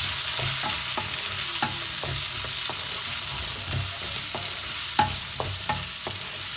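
Chopped onion, green chillies and capsicum sizzling in hot oil in a pan, with irregular clicks and scrapes of a utensil against the pan as they are stirred, and one sharper clack about five seconds in.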